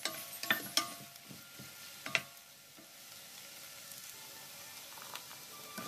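Chopped tomatoes, onions and carrots sizzling in a nonstick pot, stirred with a utensil that scrapes and knocks against the pot four times in the first two seconds, then a steady sizzle.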